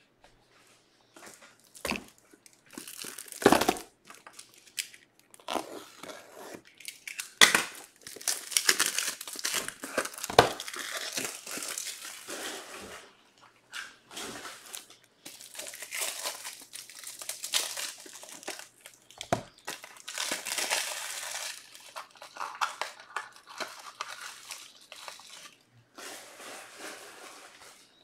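Plastic packaging crinkling and being torn open in rustling spells, with a few sharp knocks in between, the loudest about three and a half and seven and a half seconds in.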